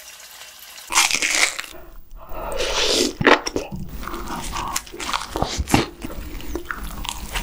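Close-miked eating: loud, crisp crunching bites and wet chewing of a lettuce wrap of spicy stir-fried webfoot octopus, starting about a second in. The first second is a quieter sizzle of battered shrimp frying in oil.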